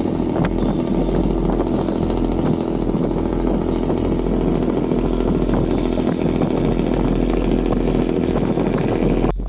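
Boat engine running steadily under way: a loud, even drone with a low hum and a buzzing edge. It drops away abruptly just before the end.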